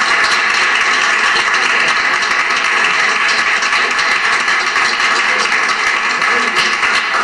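A small group of people applauding, a dense patter of hand claps, at the close of a recited poem.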